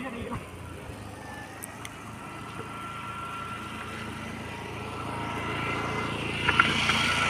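A motor scooter's engine running steadily and growing louder as it approaches. A brief sharp sound comes near the end.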